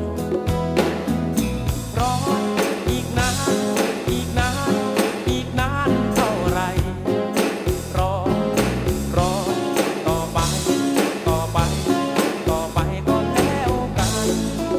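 Live band music: a man singing a Thai song over a steady drum beat, with a melodica playing along.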